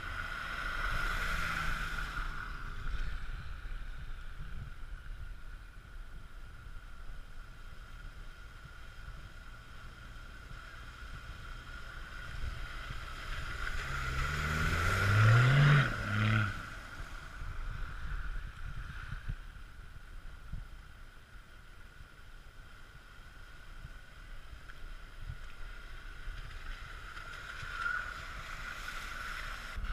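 4x4 vehicles driving through a flooded puddle on a muddy track. About halfway through, a Toyota LandCruiser 80 Series passes close with a loud splash of water, its engine rising in pitch as it accelerates. Quieter splashing from other vehicles comes near the start and near the end.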